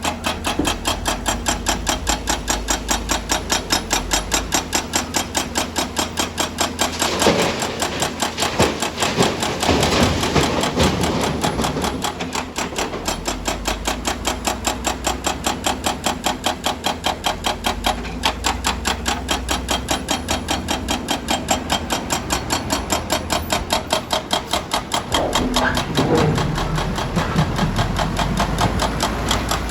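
Excavator-mounted hydraulic breaker hammering on rock in rapid, steady blows, with the machine's engine running underneath. A few louder, rougher stretches come about a third of the way in and again near the end.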